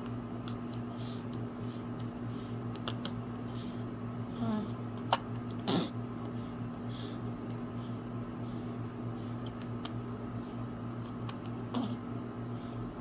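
Newborn baby hiccuping: a few short, sudden hiccups, clustered around the middle and one more near the end, over a steady low hum.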